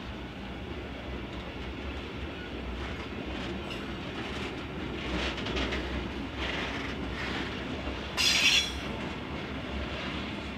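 Loaded freight flat wagons rolling past on the track, a steady running rumble with swelling rattles and wheel noise. About eight seconds in comes one brief, loud, high-pitched squeal from the wheels on the rail.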